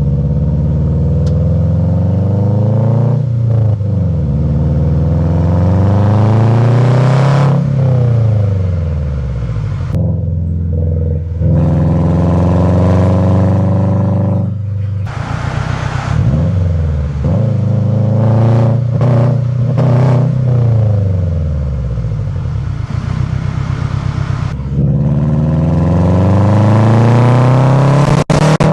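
2007 Subaru WRX's turbocharged flat-four engine, running through a modified turbo and aftermarket cat-back exhaust, revving hard, its pitch climbing and falling away again several times. The sound cuts back sharply for a moment about ten seconds in, and there are a few sharp cracks near the end.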